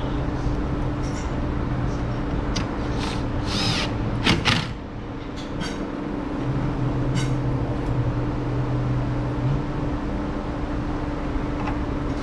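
Cordless drill with a 10 mm socket running in two stretches to tighten the nuts on a Volkswagen Jetta's trunk-mounted tail lamp, with a few sharp clicks and knocks in between.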